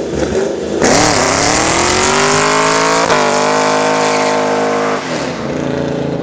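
Chevrolet Camaro ZL1's V8 revving hard through a burnout, with the rear tyres spinning and hissing. The revs climb about a second in, hold high, then drop back about five seconds in.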